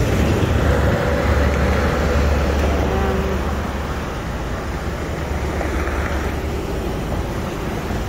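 Steady outdoor background noise: a low rumble with a hiss over it and no single clear source.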